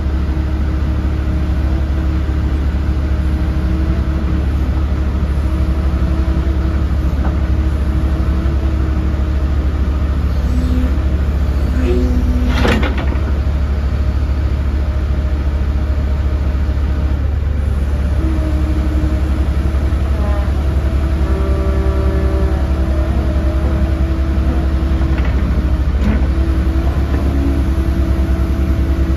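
Hyundai HX140LC 14-tonne crawler excavator's diesel engine running steadily while the boom and bucket are worked, with a single sharp knock about twelve seconds in.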